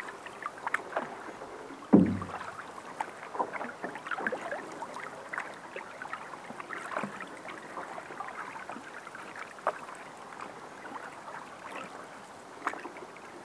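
Canoe paddles dipping and pulling through calm river water, with small splashes and drips running off the blades. One loud knock about two seconds in.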